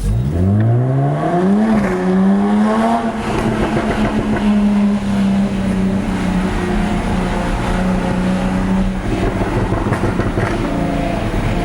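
Jaguar F-Type S's supercharged 3.0-litre V6 accelerating hard: revs climb steeply, dip briefly at a gear change about two seconds in, then hold nearly steady.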